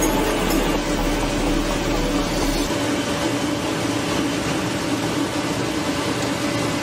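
Continuous abrasive potato peeler running: a steady machine hum with an even noisy wash of potatoes tumbling against the abrasive rollers.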